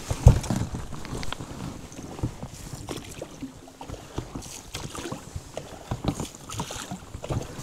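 Knocks and bumps of handling in a small boat over a haze of water and wind noise. The loudest is a heavy thump about a quarter of a second in, followed by irregular smaller knocks.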